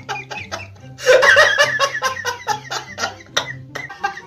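A group of people laughing hard in quick, rhythmic ha-ha pulses, growing louder about a second in.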